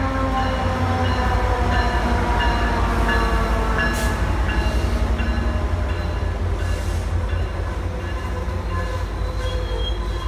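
Amtrak Pacific Surfliner train, a diesel locomotive with bilevel cars, rolling past the platform as it pulls into the station. There is a steady low rumble, and the locomotive's tones slide down in pitch as it goes by. A sharp click comes about four seconds in.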